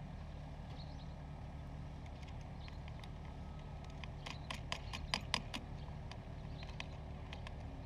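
A steady low engine drone, with a quick run of sharp knocks about four to five seconds in.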